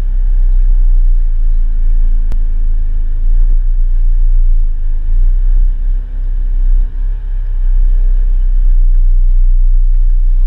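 Car engine running at idle, heard as a heavy, steady low rumble through a camera mounted on the car. A single sharp click comes about two seconds in.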